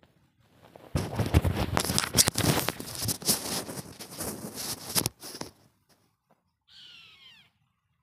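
About four seconds of loud crackling, rustling noise on the microphone that stops abruptly, followed near the end by a bird's short call of several notes falling in pitch.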